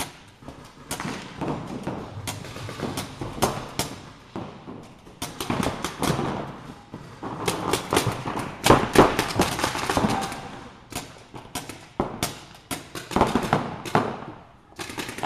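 Paintball markers firing reballs: sharp pops in irregular strings and rapid bursts, some shots landing close together.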